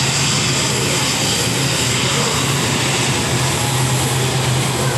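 A wide-body twin-jet airliner's engines running steadily as it taxis past: a constant low hum under a loud, even hiss.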